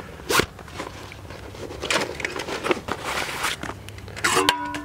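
Rustling of a canvas pouch as a frying pan is unpacked and handled, with a sharp knock about half a second in and a short metallic clink that rings briefly near the end.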